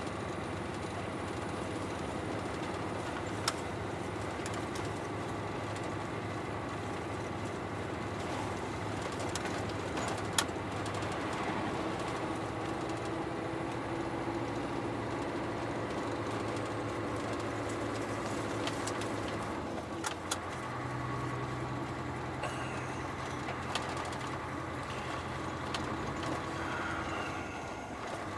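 Truck engine running steadily under load, heard from inside the cab as a low droning hum, with its pitch stepping up about 20 seconds in. A few sharp clicks or rattles come through, several seconds apart.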